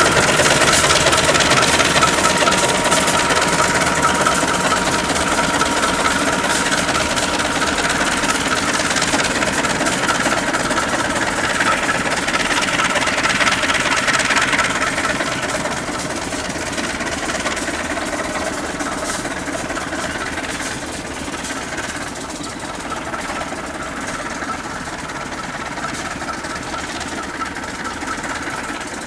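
CC 201 diesel-electric locomotive engine running steadily under load as it shunts a rake of coal hoppers. It gets quieter from about halfway through as the locomotive moves away.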